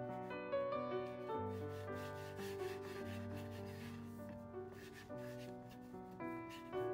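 Hands rolling a rope of soft yeast pretzel dough back and forth on a wooden board, a soft rubbing of skin and dough against the wood, over background piano music.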